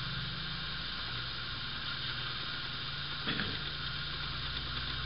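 Steady hiss with a low electrical hum: the recording's own noise floor in a pause without speech. A brief soft sound about three seconds in.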